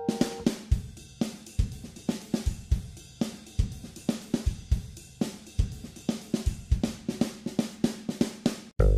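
Background music: a drum kit playing alone in a steady beat, with kick, snare, hi-hat and cymbal. A short drop-out comes near the end, just before the rest of the band comes back in.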